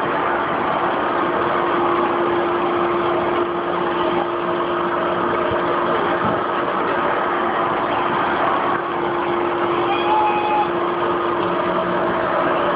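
An engine running steadily, a continuous mechanical noise with a constant hum, and a short higher tone about ten seconds in.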